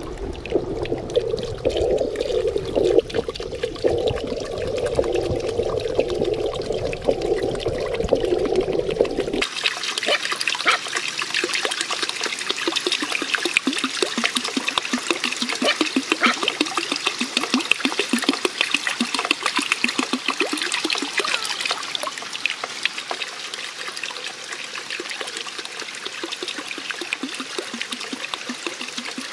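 Muffled water sound heard underwater, strongest in a low band. About nine seconds in it switches abruptly to a steady trickle and splash of water running from a small spout and bamboo water wheel into a pond.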